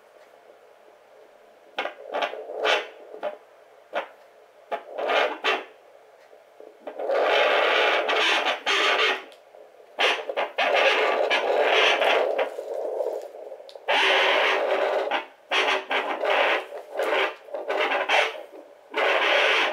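Pocket 3 MHz fetal Doppler's speaker giving scraping, rubbing static as the probe is slid over gel on the belly, in irregular bursts that begin about two seconds in, some short and some lasting a second or two. There is no steady beat: the heartbeat has not been found yet.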